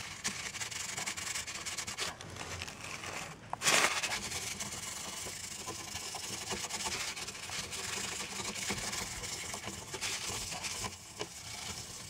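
Paper scrubbing old thermal paste off the metal lid of an Intel Core 2 Duo processor: a continuous dry, scratchy rubbing, with a brief louder rustle of the paper about three and a half seconds in.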